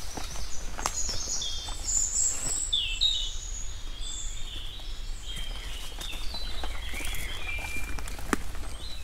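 Small birds singing outdoors, a run of short high chirps and warbled notes throughout, over footsteps with scattered sharp clicks and a steady low rumble underneath.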